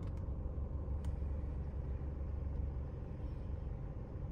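A car engine idling, a steady low rumble heard from inside the cabin, with a faint click about a second in.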